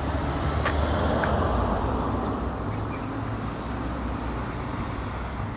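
Street ambience: a steady low rumble of road traffic, with two faint clicks about a second in.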